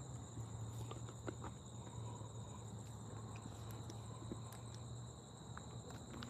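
A steady, high-pitched chorus of night insects, with faint, scattered footsteps.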